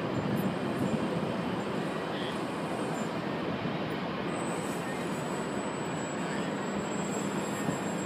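Steady rushing outdoor noise with the faint, even drone of a remote-control plane's motor flying overhead. A thin steady whine and a low hum come through more clearly in the second half.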